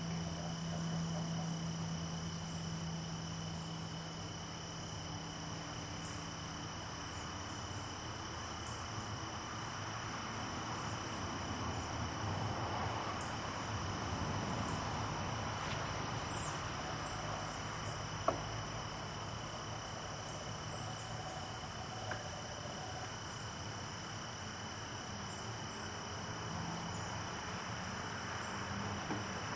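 Steady high chirring of insects over a low hum, with one sharp click a little past the middle.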